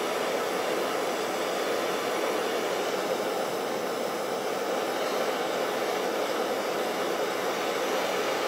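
Handheld gas torch on a yellow fuel cylinder burning with a steady, even hiss of flame, heating a freshly poured silver bar in its mold.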